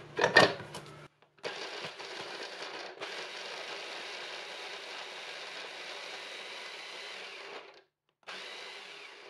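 Electric mini food chopper mincing scallion whites and garlic, after a couple of knocks at the start. The motor runs steadily for about six seconds, stops, then gives a short second pulse near the end.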